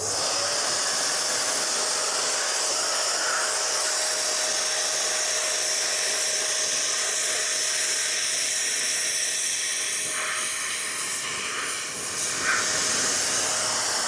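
Gpower drum vacuum cleaner switched on and running with its small brush fitted: a steady rush of air with a high hiss and a thin, even whine from the motor, dipping slightly for a moment near the end.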